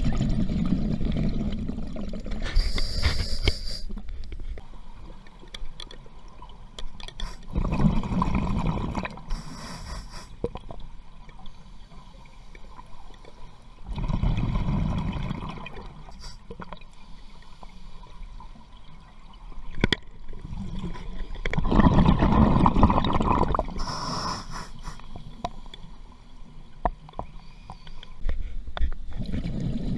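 A scuba diver breathing through a regulator underwater. Each breath is a short high hiss as the diver breathes in, then a longer, louder rumble of exhaled bubbles. The cycle repeats about every seven seconds, with five bubble bursts.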